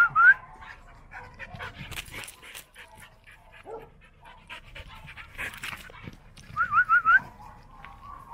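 Dogs panting and sniffing as they circle one another, with scattered soft shuffles of paws on dirt. Two brief runs of quick, high rising squeaks cut in, one at the start and one about seven seconds in.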